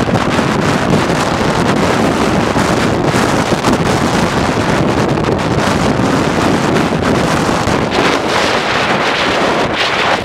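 Storm-force wind from Hurricane Sandy buffeting the microphone, a loud steady rush, with waves from Lake Ontario breaking and spraying against the pier underneath.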